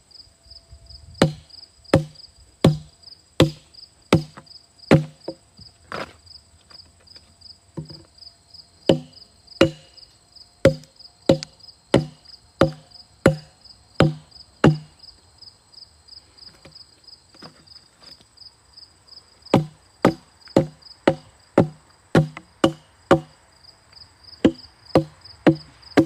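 Hatchet chopping into wood, chipping out chunks of a log in a steady rhythm of about one and a half strikes a second. The chopping pauses for about four seconds just past halfway, then resumes. Crickets chirp steadily behind.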